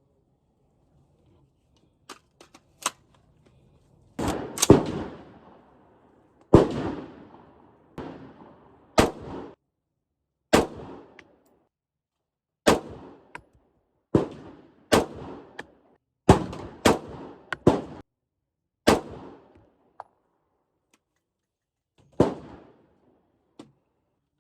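AR-15 rifle with a 16-inch barrel firing about fifteen single shots at an uneven pace, each crack followed by a short echoing tail. A few faint sharp clicks come before the first shot.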